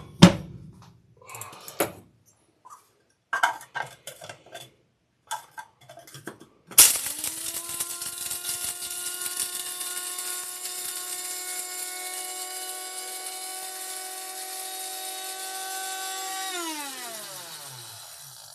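Toasted cumin seeds and peppercorns clattering into an electric spice grinder with a few clicks. About seven seconds in the grinder's motor starts with a steady whine, runs for about ten seconds grinding the seeds to powder, then switches off and falls in pitch as it spins down near the end.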